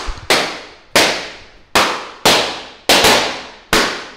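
Rubber balloons bursting one after another: about eight sharp pops in quick, uneven succession, each ringing briefly off the hard floor and walls.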